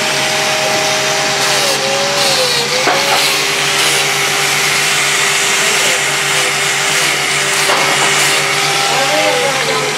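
Electric motor with a grinding wheel running steadily: a continuous loud hiss over a constant hum.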